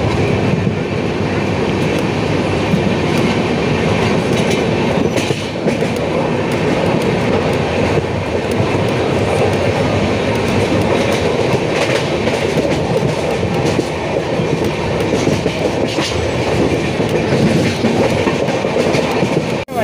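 A moving passenger train heard from inside the carriage, its wheels on the rails making a loud, steady running noise.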